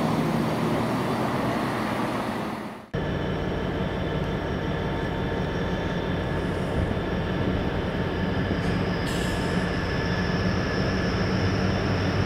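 Trains at a railway station: a train runs loudly, fading away until a sudden cut about three seconds in. After the cut, a train rumbles steadily with a low hum and a thin, steady high-pitched whine.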